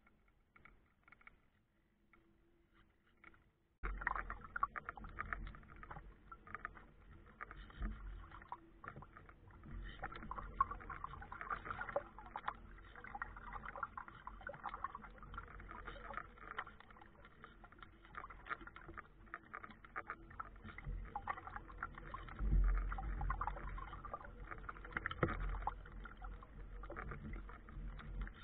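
Water splashing and lapping against the hull of a small homemade radio-controlled sailboat under way, heard from right on its deck, with crackly spray and irregular wind rumble on the microphone. It starts suddenly about four seconds in, after near-quiet.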